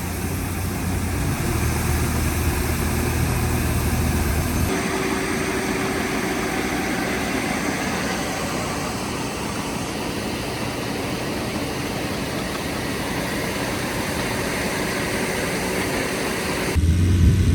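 Combine harvester engine running: a steady low idle at first, then, after an abrupt change about five seconds in, a fuller, noisier working sound with a steady hum, changing back to a strong low engine hum near the end.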